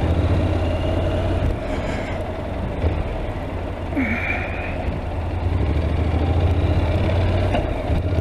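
Honda NC750X's parallel-twin engine running steadily under way, a constant low drone with road and wind noise over it. A short higher-pitched tone sounds about four seconds in.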